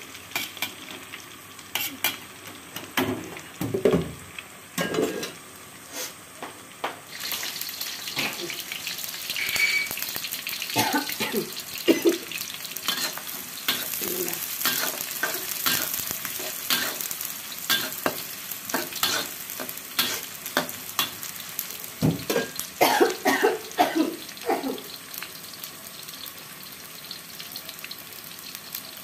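Hot oil sizzling in a steel wok while a metal spatula scrapes and taps against the pan. About seven seconds in the sizzle grows louder and brighter, as sliced onions are stir-fried in the oil, with a flurry of spatula strikes a little past the middle.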